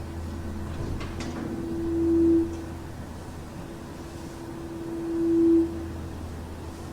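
An unexplained droning tone of the kind recorded as 'sky trumpets': one steady tone over a low hum, which twice swells louder over a second or so and then drops back abruptly.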